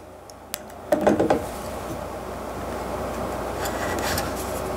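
Handling sounds of a Canon 60D DSLR body being fitted onto a telescope's camera adapter: a small click about half a second in, then steady rubbing and scraping as the camera is worked into place.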